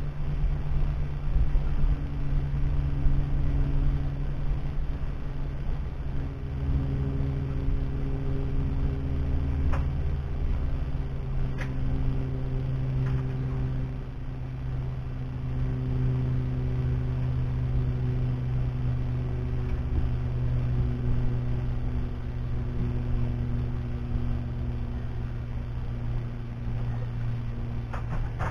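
An engine running steadily: a low hum whose pitch wanders a little, with a couple of faint clicks about ten and twelve seconds in.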